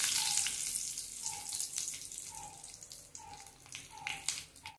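Hot oil sizzling in a kadai around a tempering of mustard seeds, urad dal, curry leaves and a dried red chilli, with the sharp crackles of popping seeds. The sizzle fades steadily as it dies down.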